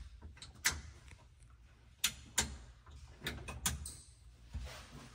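Irregular sharp clicks and knocks of hard objects being handled, with a quick cluster of clicks a little past the middle and a dull low thump near the end.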